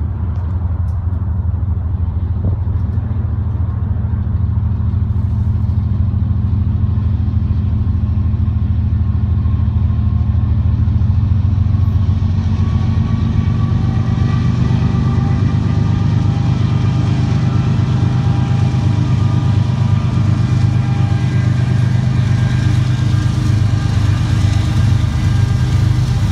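Union Pacific diesel freight locomotives approaching: a continuous heavy low rumble, with steady engine tones coming in about halfway and growing louder as the lead units draw close.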